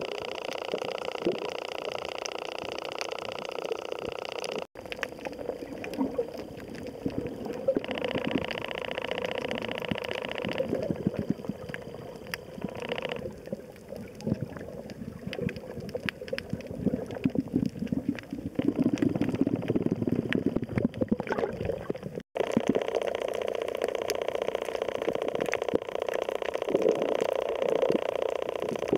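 Muffled underwater water noise with bubbling and a constant fine crackle of tiny clicks. The sound cuts out abruptly for an instant twice, about five seconds in and about two-thirds of the way through.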